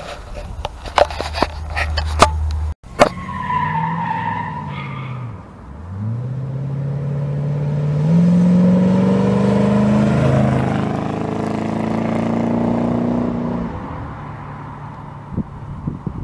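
Corvette C3's V8 engine accelerating as the car drives past, its note rising in pitch, loudest about halfway through, then fading as it pulls away. Before it, a few sharp clicks over a low rumble cut off abruptly about three seconds in.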